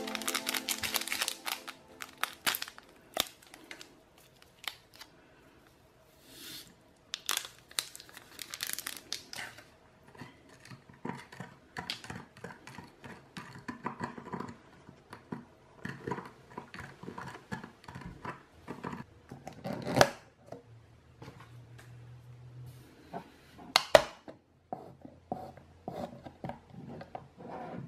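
Crinkly plastic candy wrapper being torn open and handled, followed by scattered taps and clicks of a plastic cup and straw, with two sharp loud snaps in the later part as a domed plastic lid goes onto the cup.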